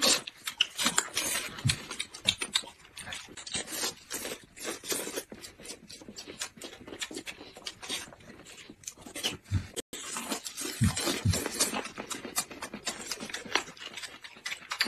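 Close-miked eating sounds: noodles being slurped and food chewed, a dense run of irregular wet smacks and clicks.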